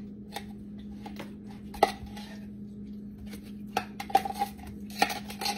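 A knife cutting canned apples inside the tin can, the blade clinking and tapping irregularly against the metal can. One sharper knock comes a little under two seconds in, and a quicker run of taps comes near the end. A steady low hum runs underneath.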